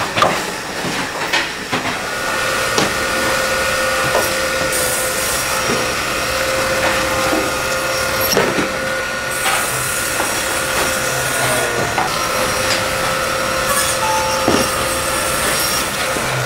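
Band saw running and cutting frozen tuna: a steady whine, with a high hiss that comes and goes as the blade bites into the frozen fish. Scattered knocks come from the frozen blocks being handled on the steel table.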